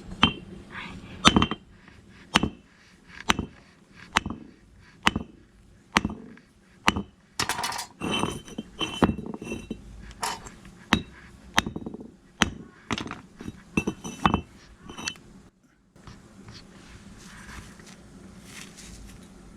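Sharp clinks of hard objects struck together, about one a second, each with a short ring. They stop a few seconds before the end, leaving a faint steady hiss.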